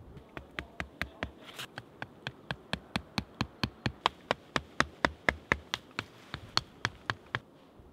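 A hatchet hammering sharpened wooden stakes into the ground to pin down a ground sheet: a fast, even run of knocks, about four a second, that stops shortly before the end.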